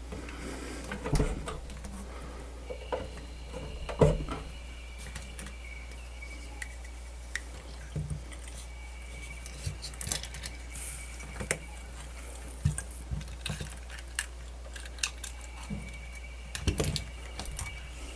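Scattered small clicks, taps and metallic clinks of hands working with tools, wires and small parts on a workbench, over a steady low electrical hum. A faint, thin, high steady whine comes and goes from about three seconds in.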